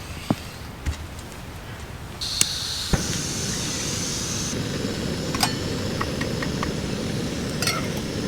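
Backpacking camp stove on a gas canister: about two seconds in the gas comes on with a hiss, and the burner then runs with a steady rush, with a few light clicks and knocks over it.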